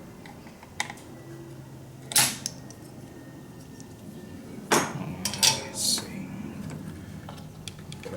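Small hard clicks and taps of tools and parts being handled while a tact switch is removed from a circuit board. The loudest click comes about two seconds in, followed by a cluster of several clicks around five to six seconds.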